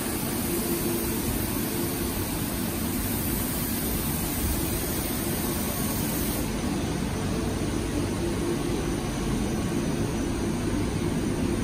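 Steady drone of machinery on a glaze production line: conveyors and plant running continuously, a constant rushing noise over a low hum.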